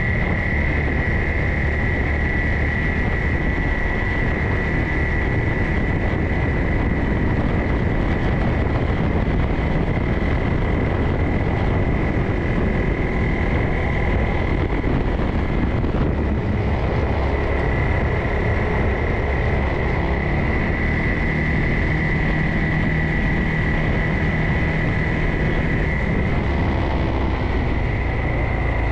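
Vehicle engine running steadily on the move over a dirt trail, with a steady high whine over the rumble.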